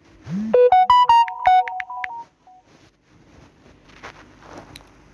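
A short electronic jingle: a quick run of bright synthesized notes lasting about two seconds, opening with a low thump or two. It is followed by faint background noise with a few soft clicks.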